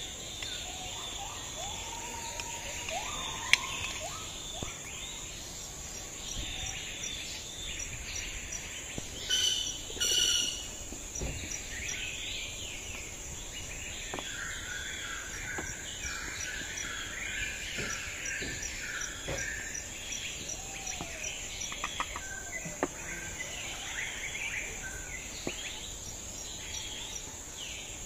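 Rural outdoor ambience: a steady high insect trill with birds chirping throughout. Two brief loud knocks about nine and ten seconds in, and a few light sharp taps.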